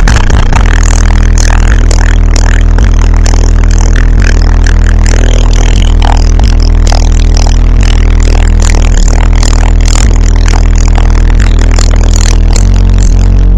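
Car-audio subwoofers playing bass-heavy music at very high volume inside the car's cabin, overloading the microphone into distortion, with a dense buzzing rattle over the deep bass.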